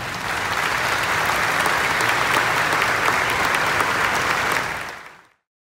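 Audience applauding: a steady mass of hand claps that fades quickly and cuts off about five seconds in.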